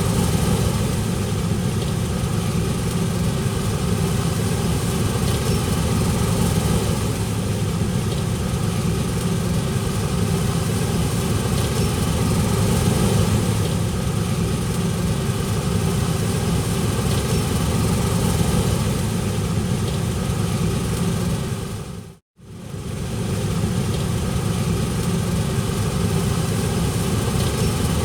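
Diesel engine of farm harvest machinery running steadily at a constant speed. About two-thirds of the way through, the sound drops out for a moment and comes back unchanged.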